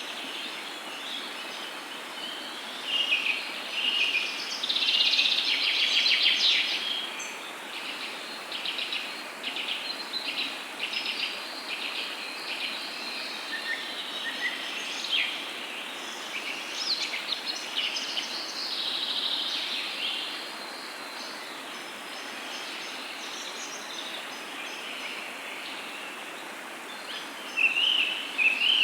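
Wild birds chirping and trilling in quick, overlapping calls over a steady background hiss, busiest in the first several seconds and again near the end.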